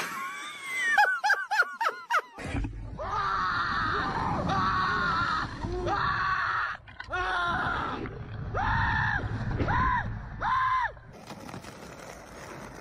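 A young man screaming over and over on an amusement thrill ride: a run of long, loud held screams, one after another, with a low rumble beneath them.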